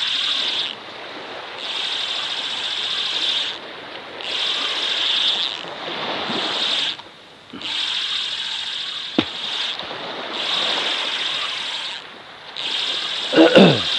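Spinning fishing reel cranked in bursts of about two seconds with short pauses: a rasping whir from the reel's gears as a lure is retrieved after a cast. One sharp click about nine seconds in, and a brief falling voice-like sound near the end.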